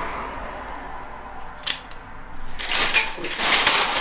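Coin lock of a supermarket shopping trolley clicking open with a plastic trolley token, then the wire trolley rattling and clattering as it is pulled out of its nested row.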